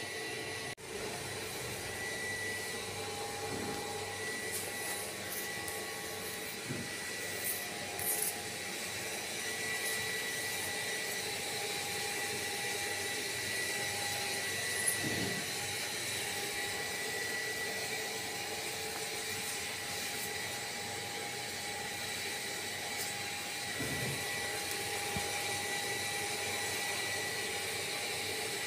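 A steady whirring hum, with faint high tones that come and go over it.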